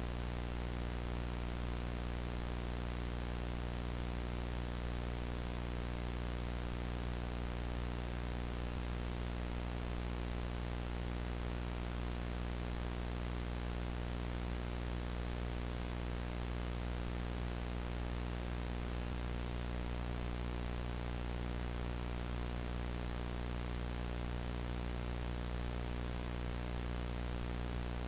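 VHS tape static: a steady, even hiss with a low hum beneath it, unchanging throughout.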